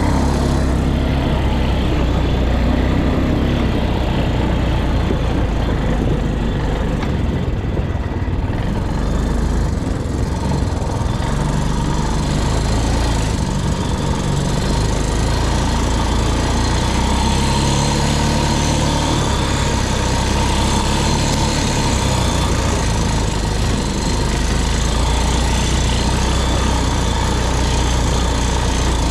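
A motor vehicle's engine running continuously, its pitch shifting a little now and then, with a thin steady whine above it.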